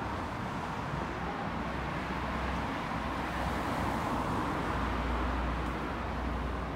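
City street ambience: steady, distant road traffic hum, swelling a little in the middle.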